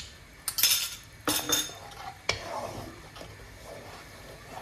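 Metal spoon scraping and tapping tomato purée out of a glass bowl into a frying pan, with a few clinks and one sharp tap about two seconds in. A wooden spatula then stirs the purée around the pan with soft scraping.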